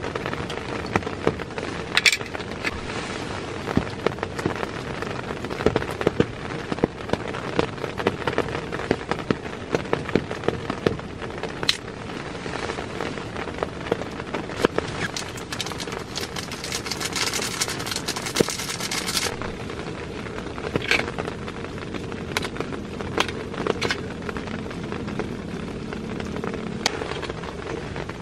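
Noodles frying in a pan on a gas canister camp stove: a steady sizzle full of crackling pops, with a louder, brighter hiss for about two seconds a little past halfway.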